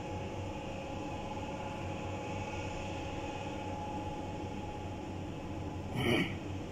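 Steady mechanical hum with a few held tones under an even noise, with a short louder burst about six seconds in.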